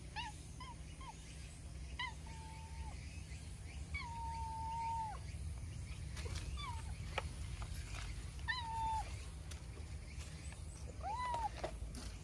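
A cat meowing over and over in short, chatty calls as it walks up. About eight calls in all; the longest, about a second long, starts about four seconds in.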